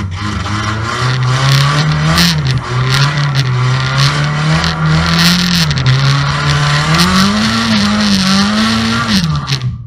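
Banger race car's engine heard from inside its stripped cabin, revving hard and rising and falling in pitch as the driver accelerates and lifts off, with frequent knocks and rattles from the loose bodywork. The sound cuts off suddenly near the end.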